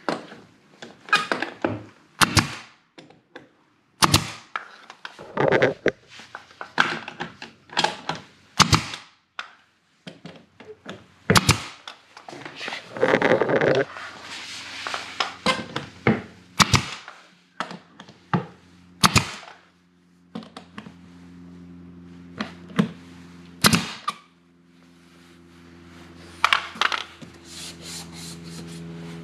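Brad nailer firing nails into baseboard trim: a long series of sharp shots at irregular intervals, usually a second or two apart. A steady machine hum joins about two-thirds of the way through.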